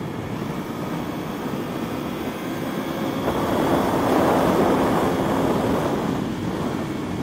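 Onboard sound of the Aprilia Tuono V4 at speed on track: engine note under heavy wind rush, growing louder about three seconds in.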